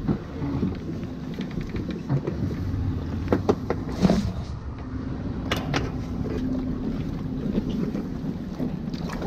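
Steady low engine hum with a few sharp metallic clicks and knocks from a boat trailer's hand winch and fittings as the boat is freed from the trailer.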